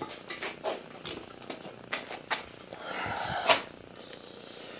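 Handling noise from steel mini-tub frame rails being picked up and moved: faint scattered knocks and shuffling, with a soft rustle building about three seconds in and ending in a slightly louder knock.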